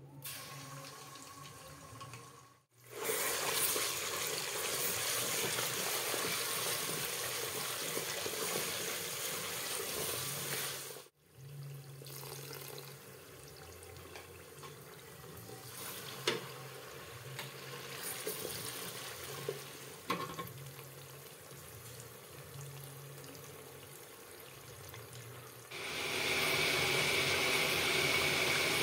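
Tomato paste frying in hot oil in a metal pot, sizzling steadily, louder in two stretches, with a few brief knocks of a wooden spoon stirring against the pot.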